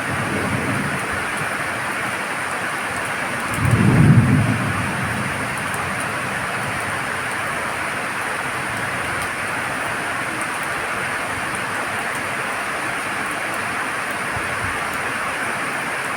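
Steady rain hissing, with a low rumble of thunder swelling and fading about four seconds in.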